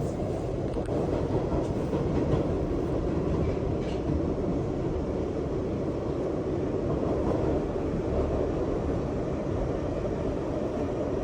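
New York City subway train running, a steady low rumble of the cars on the track.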